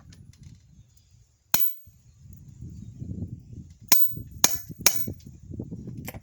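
Hammer blows on steel at the anvil during forging: one sharp metallic strike, then after a pause three quick strikes and one more near the end, with a low, uneven rumble underneath between the blows.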